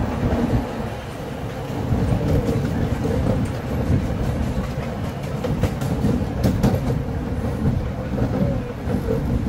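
Miniature ride-on railway train running along its track: a steady rumble of wheels on rail, with a few sharper clacks over rail joints a little past the middle.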